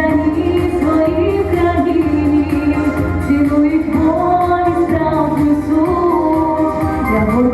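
Women singing a pop song over instrumental backing with a steady bass.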